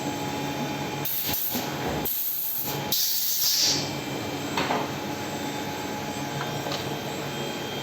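CNC turning lathe running with a steady hum, with several bursts of loud hissing between about one and four seconds in and a short knock shortly after.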